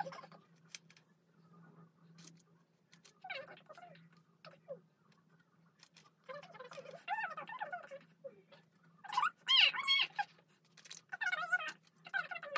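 Pomeranian whining: four spells of high, wavering whines with short pauses between them, the loudest about nine to ten seconds in.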